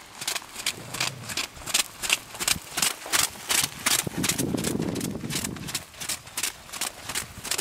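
Welsh pony trotting on wet arena footing: hoofbeats in a steady rhythm of about two to three strikes a second. A low rumbling noise swells and fades in the middle.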